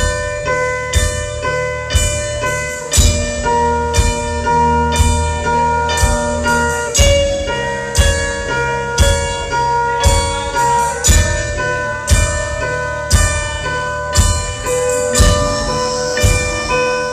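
Music: a slow metal-show intro of ringing, bell-like tones struck about once a second over a deep, sustained bass.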